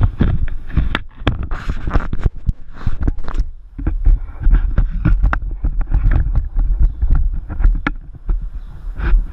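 Handling noise from an action camera being picked up and swung around: loud, irregular knocks and rubbing on the microphone, with low rumble throughout.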